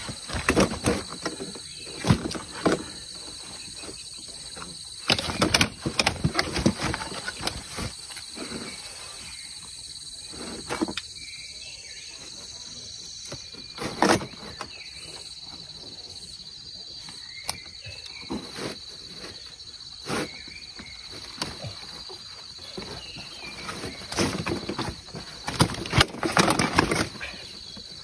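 Irregular knocks, thumps and splashes as a caught fish is lifted and handled in a landing net on a fishing platform, with louder clusters a few seconds in, mid-way and near the end. A steady high insect drone runs underneath.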